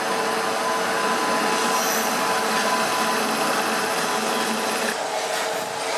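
WAG-9 electric locomotive passing close by with a steady electric whine and hum of several held tones. About five seconds in, the loaded BOXN coal wagons start rolling past, adding wheel clicks on the rail.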